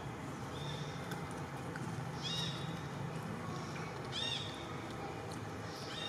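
An animal's short, high chirping calls, each rising and falling in pitch, a few of them about two seconds apart, over a low steady hum.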